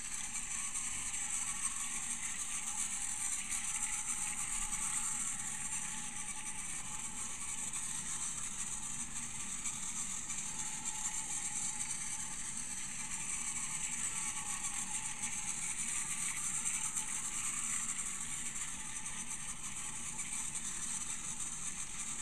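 Battery-powered TrackMaster Diesel 10 toy train running on plastic track: a steady, high motor-and-gearbox whir with wheel noise, wavering slightly in pitch as it circles.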